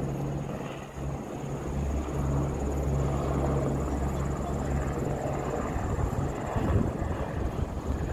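Steady running noise of a vehicle: a low hum and rumble with a thin, steady high whine above it.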